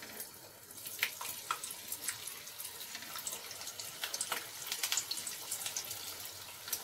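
A malai kofta ball deep-frying in hot oil in a kadhai: a steady sizzling hiss with frequent sharp crackles and pops.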